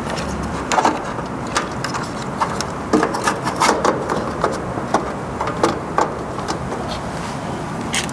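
Scattered light clicks and knocks of an HVAC contactor being handled and fitted back onto the unit's electrical panel, over steady background noise.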